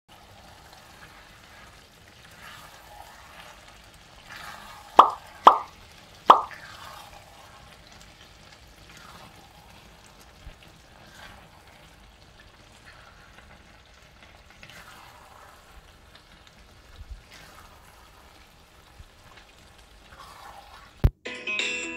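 Thick bean-and-tomato chakalaka in a steel pot being stirred with a spoon: soft wet squelching sounds, with three loud quick plops about five to six seconds in. A sharp click comes just before the end.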